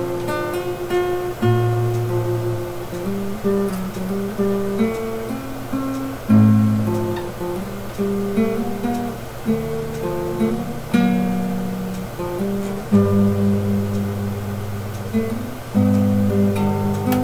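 Acoustic guitar played solo: a slow run of picked notes and arpeggiated chords, with a harder strummed chord now and then.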